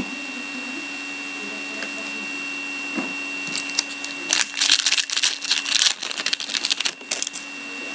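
Foil trading-card pack crinkling and tearing open by hand: a dense run of crackles lasting about three seconds from just past the middle, over a steady hum.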